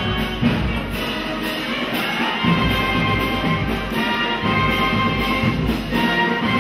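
Brass band music with drums, playing steadily.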